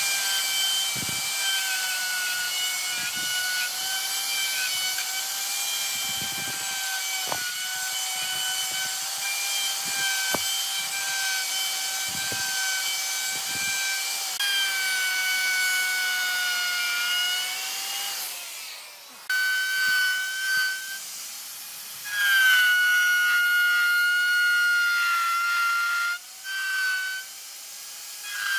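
Handheld electric power tool running on wood: a steady high motor whine over hiss, its pitch sagging a little at times as it takes load. It drops out briefly about two-thirds of the way through, then comes back in several loud spells.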